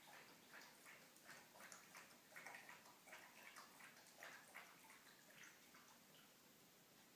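Faint, irregular soft clicks and taps, about two or three a second, from a long-haired dog working with its head down at something on the floor.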